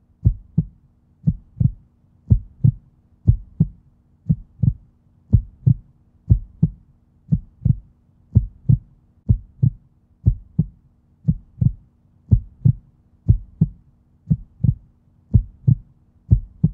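Heartbeat sound effect: a steady, slow lub-dub, a pair of deep thumps about once a second.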